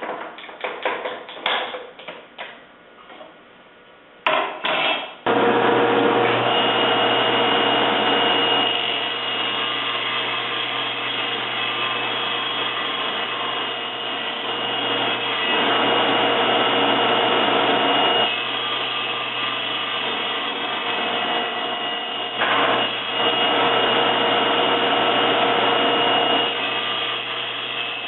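A few knocks and clicks as the workpiece and jig are set in place, then a table saw starts about five seconds in and runs steadily with a low hum, its sound changing several times as the blade cuts a shallow bevel facet into the tabletop.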